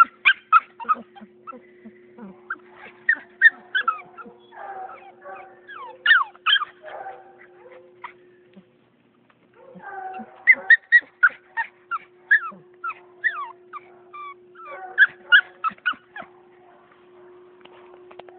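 Beagle puppy whimpering and yipping in quick runs of short, high-pitched cries, some falling in pitch, with a brief pause about halfway through. A faint steady hum lies underneath.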